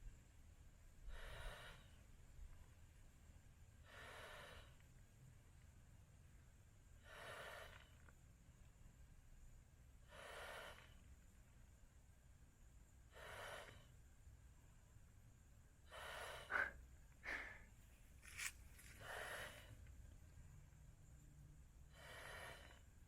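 A person blowing up an inflatable sleeping pad by mouth: a faint breath blown into the valve about every three seconds, eight in all, with a few short high squeaks about two-thirds of the way through.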